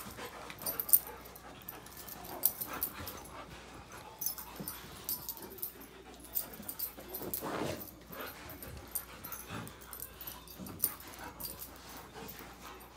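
An American Akita and a Newfoundland puppy play-fighting on carpet: scuffling with many scattered sharp clicks and knocks, and dog vocal sounds, the longest about seven and a half seconds in.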